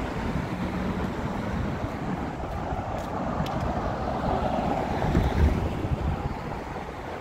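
Downtown street traffic running steadily, with wind on the microphone; it swells louder about five seconds in, as a vehicle goes by.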